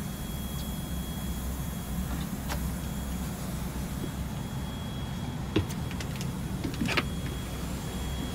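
Isuzu Gala bus diesel engine idling steadily, heard from the driver's cab, with a faint steady high whine over the low rumble. A few sharp clicks and knocks come about two-thirds of the way through.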